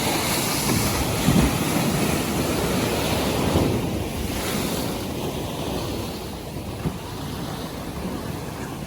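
North Sea waves breaking and washing, with wind buffeting the microphone. The surf is loudest over the first few seconds, then eases off.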